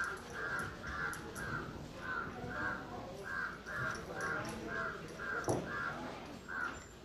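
A crow cawing over and over, a harsh call about twice a second, over the rubbing and flapping of a towel drying long wet hair, with a louder thud about five and a half seconds in.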